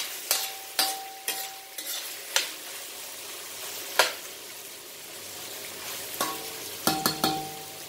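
Chicken wings sizzling as they are sautéed with onion and garlic in a heavy pan on an induction stove. A utensil stirs them and clacks against the pan now and then, with one sharp knock about four seconds in and a quick cluster of knocks near the end.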